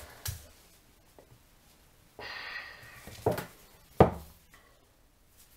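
Close handling noise from hands working near the microphone: a short scrape about two seconds in, then two sharp knocks less than a second apart, the second the loudest.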